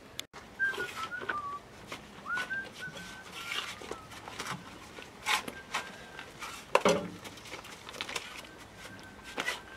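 Scattered knocks, clinks and scrapes of stones and a mason's trowel as stones and mortar are worked into a stone wall, the loudest knock about seven seconds in. A few short, high whistled notes sound in the first three seconds.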